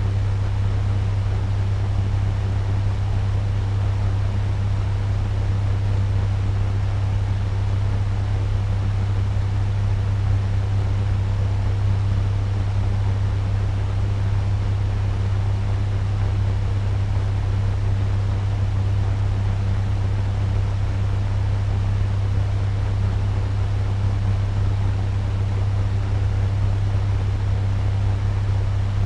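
Turbo fan running steadily at medium speed: a constant low hum under an even rush of air.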